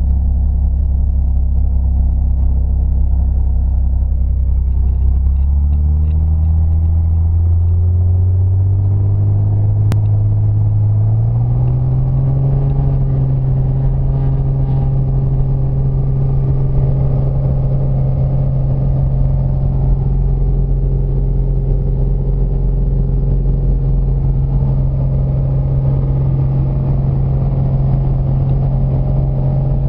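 Piper light aircraft's piston engine and propeller heard from inside the cabin, throttling up for the takeoff run. The drone climbs in pitch in steps a few seconds in, then holds steady and higher for the rest of the time.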